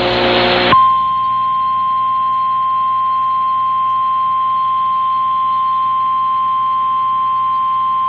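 A harsh, hissy burst cuts off under a second in. An Emergency Alert System attention signal follows: a single steady tone near 1 kHz, held at an even level, announcing a Severe Thunderstorm Warning broadcast.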